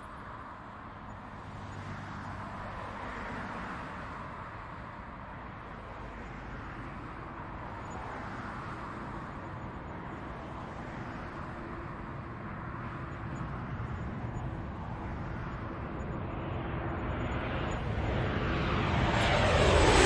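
Jet airliner approaching, a Southwest Airlines Boeing 737: its engine noise grows steadily louder, then swells sharply in the last couple of seconds as it nears overhead.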